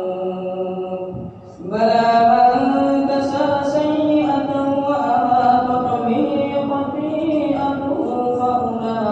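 Melodic Quran recitation (tajwid) by a single voice, holding long drawn-out notes that bend in pitch; it breaks off briefly for breath about a second and a half in, then resumes.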